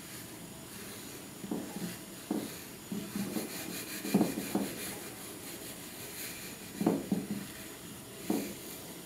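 Batter-coated corn dog rolled through a dish of breadcrumbs, with irregular scrapes and rustles of crumbs against the ceramic dish.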